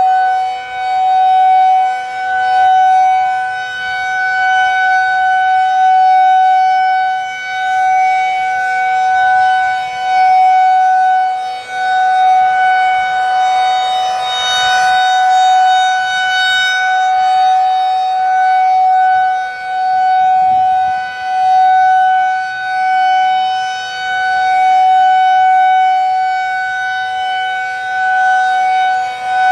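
Federal Signal 2001-DC 'Roundback' rotating outdoor warning siren sounding a steady single tone for a scheduled test. Its loudness rises and falls every two to three seconds as the rotating head sweeps past.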